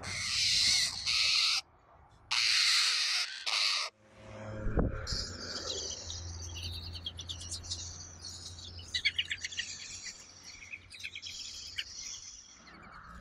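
Eurasian jay nestlings giving harsh, hissing begging calls in two long bursts over the first four seconds. A thump comes about five seconds in, followed by softer rasping, ticking chatter from the chicks at the nest while the adult feeds them.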